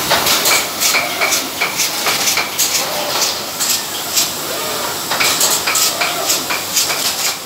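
Automatic bottle-capping machine running: plastic bottles and caps clattering along the conveyor and under the capping heads, with a quick run of sharp clicks, about two or three a second, over a steady machine hiss.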